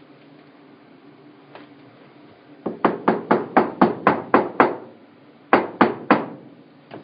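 Sharp knocks on a hard tabletop: a quick run of about eight, roughly four a second, then a short pause and three more.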